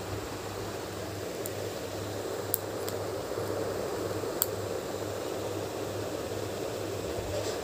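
A few sharp little clicks as a parakeet bites and handles a plastic pen cap, over steady background whir.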